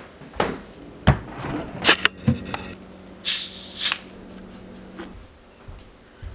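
Handling noises: several sharp knocks and clicks, then a short crackle about three and a half seconds in as the cap of a plastic water bottle is twisted open.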